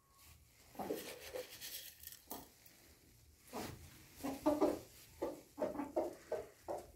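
Brahma bantam chickens clucking: a few soft clucks early on, then a quick run of short clucks in the second half.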